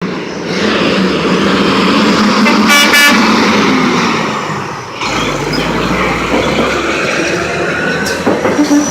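Semi truck's horn sounding in one short blast about three seconds in, over steady, loud road and engine noise.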